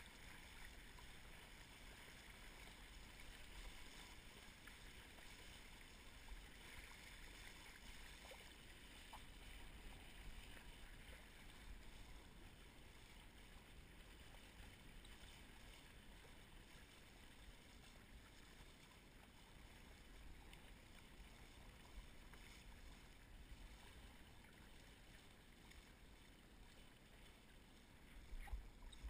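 Faint, steady rush of water and wind as a windsurf board sails across choppy water, a little louder near the end.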